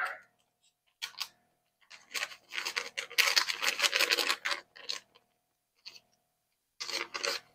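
Scissors cutting open a paper packet of cake mix, with bursts of crinkling and rustling from the packet, heaviest from about two seconds in to five seconds and again near the end.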